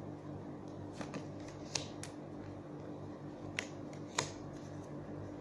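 Tarot cards being handled and drawn from the deck: about five short, sharp card clicks and snaps, spaced irregularly.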